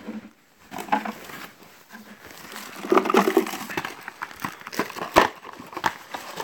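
Cardboard box flaps and plastic packaging being handled: irregular rustling and light knocks.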